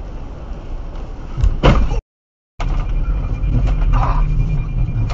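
Tyre and rain noise inside a car driving on a wet highway, broken by a loud sudden crack about a second and a half in. After a brief silence the road noise resumes, louder.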